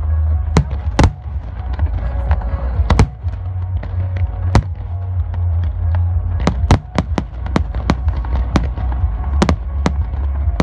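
Aerial fireworks shells bursting in a run of sharp bangs over a steady low rumble, the bangs coming thickest from about six seconds in.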